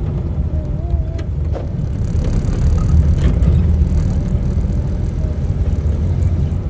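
Car driving along a road: steady low rumble of engine and tyre noise, slightly louder in the middle.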